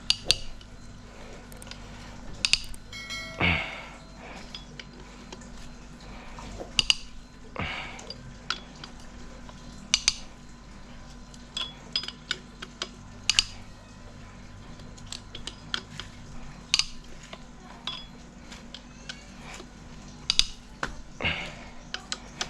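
Hand tools on engine bolts: irregular metallic clinks and clicks of an 8 mm wrench and socket, with a brief run of rapid ratchet-like ticks about two and a half seconds in, as the fuel rail (delivery pipe) bolts are undone. A steady low hum runs underneath.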